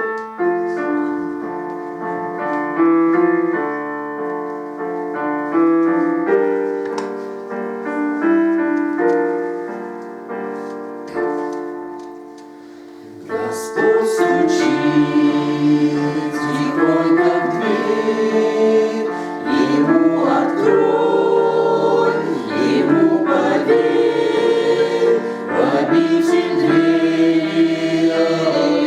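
Hymn music: a keyboard or piano introduction of separate, fading chords, then about 13 seconds in a choir comes in singing, louder and fuller.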